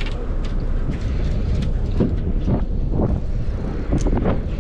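Steady low rumble on the deck of a charter fishing boat under way or drifting, with scattered knocks and clicks from activity on deck.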